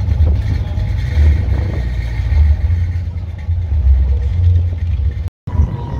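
1957 Chevrolet two-door sedan's V8 running at low speed as the car pulls away, a deep, pulsing exhaust rumble. The sound cuts out briefly near the end.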